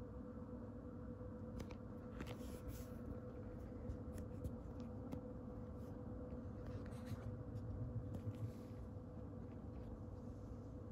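Quiet room tone with a steady low hum, broken by a few faint soft rustles and light ticks, twice in small clusters.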